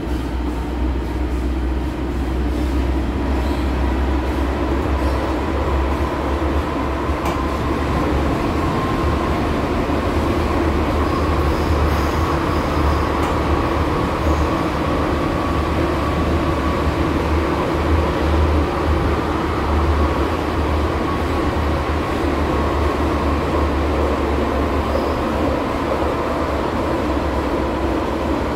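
Cologne Stadtbahn light-rail car running, heard from inside the carriage: a steady deep rumble of wheels and running gear with a thin steady whine above it.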